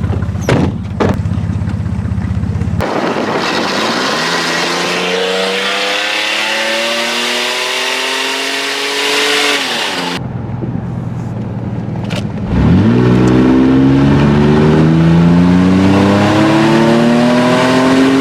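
Riding lawn mower engine running loud and being revved. Twice it climbs steadily in pitch over several seconds and then drops off, once starting a few seconds in and again, louder, past the middle.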